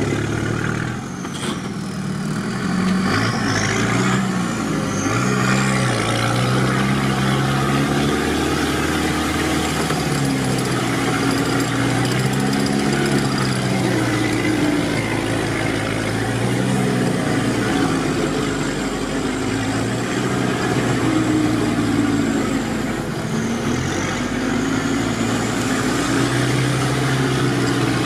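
Off-road 4x4's engine working through deep mud ruts, its revs rising and falling again and again, heard from on board the vehicle.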